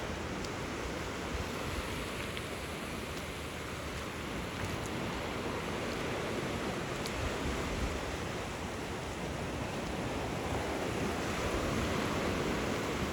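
Small surf washing onto a sandy beach, a steady wash with wind buffeting the microphone.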